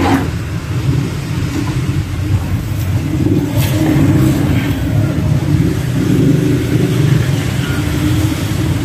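An engine running steadily, its pitch wavering up and down as if lightly revved, with a few faint knocks over it.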